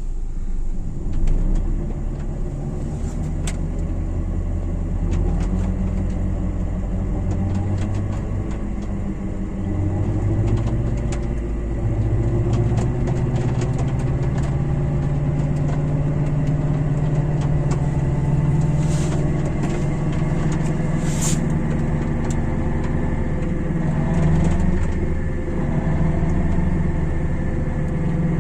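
Car engine running in fourth gear, driving a jacked-up wheel that spins freely, with the hum of the wheel and its hub bearing as it is checked for a worn, humming bearing. The speed drifts up and down slowly, and there are occasional faint ticks.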